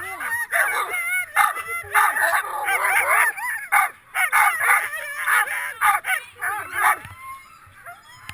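Several harnessed sled dogs yelping, yipping and barking over one another in a dense chorus, the excited clamour of dogs lunging in harness, eager to run. It thins out about seven seconds in.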